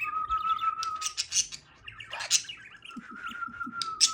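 Pet bird chirping and clicking rapidly, over two long, steady whistled notes, with one loud sharp chirp about halfway through.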